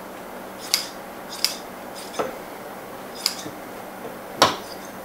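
Upholstery scissors cutting Dacron polyester batting: about five sharp snips spaced roughly a second apart, the one near the end the loudest.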